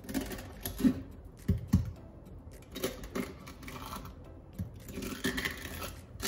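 Japanese kitchen knife slicing along the back of a hairtail to cut away its dorsal fin: irregular crisp clicks and taps as the blade cuts through the fin and knocks on the wooden cutting board, with a short stretch of scraping near the end.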